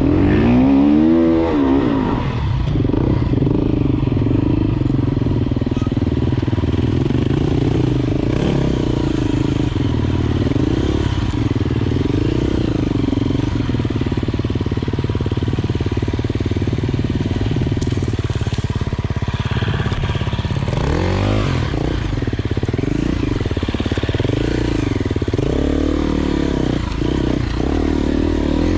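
Enduro dirt bike engine running under load as it is ridden off-road, revs rising and falling with the throttle. There is a sharp climb in revs about a second in and several quick throttle blips near the end.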